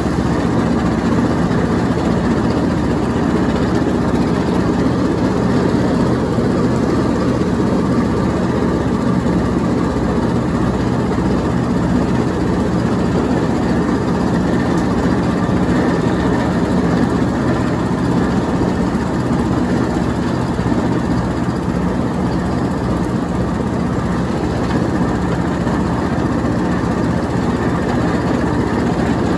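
Troy-Bilt Bronco automatic riding lawn mower's engine running steadily at an even speed while mowing and shredding leaves.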